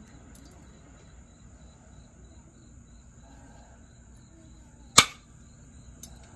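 A single sharp click about five seconds in: a flake snapping off the edge of a jasper slab under a copper-tipped flaking tool, with a smaller tick about a second later.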